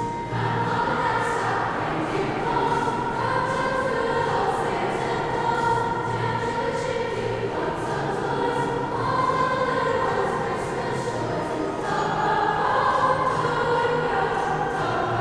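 A high school choir singing, many voices holding chords. The voices come in just after the start, following a short instrumental passage.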